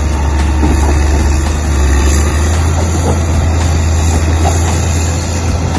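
Caterpillar motor grader's diesel engine running steadily with a loud, deep hum as the machine moves along a dirt road.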